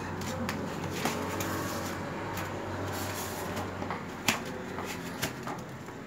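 A few scattered clicks and knocks of hands handling the anti-theft gate's power supply and cable, the sharpest about four seconds in, over a steady low hum.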